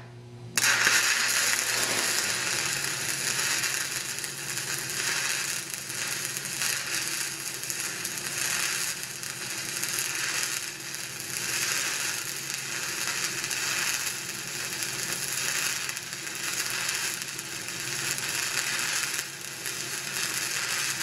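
Stick-welding (shielded metal arc) arc on 3/8-inch beveled plate, struck about half a second in and then crackling and sizzling steadily as the electrode burns in a hot pass over the root.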